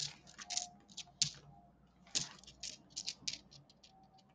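10p coins clicking against one another as hands slide and turn them over on a towel: a scattered run of light, sharp clicks, at times several a second.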